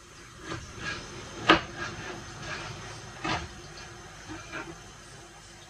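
Kitchen knife slicing a raw carrot held in the hand over a pot: a few irregular crisp cuts, the loudest about a second and a half in, over a faint steady hiss.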